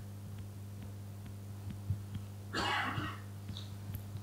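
A single short cough over a steady low hum.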